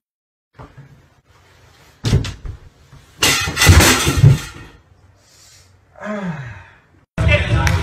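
A person falling into a bathtub: a knock about two seconds in, then a loud clattering crash with heavy thumps against the tub. Near the end comes a short sound sliding down in pitch.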